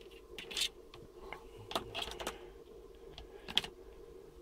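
Scattered small clicks and plastic rustles of a charger cable and its plug being handled, the sharpest click about three and a half seconds in.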